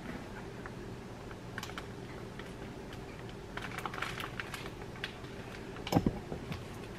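A cardboard gift box being handled: scattered light taps and rustles, a denser run of them around the middle, then a heavier thump about six seconds in.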